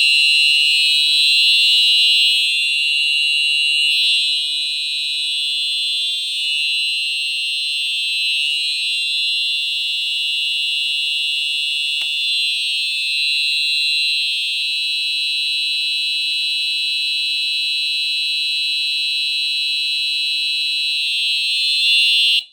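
Fire alarm horn strobe sounding a continuous, very loud, high-pitched electronic tone that cuts off abruptly near the end.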